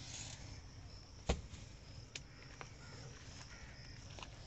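Metal control levers of a road roller being worked while its engine is off: one sharp metallic knock about a second in, then a few lighter clicks. The machine will not start.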